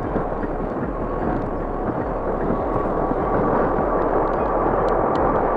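Airbus A380's four jet engines at take-off thrust: a steady, heavy rumble that grows slightly louder as the airliner rolls and lifts off, with a faint steady whine coming in about halfway.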